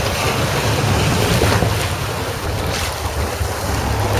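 A small open boat's motor drones steadily while the hull runs through choppy sea, with water splashing and wind noise on the microphone.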